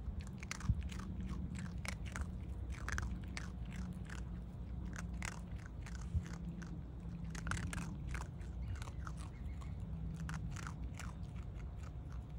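Raccoon dog crunching and chewing dry food bits, a quick irregular run of crisp crunches over a low steady rumble.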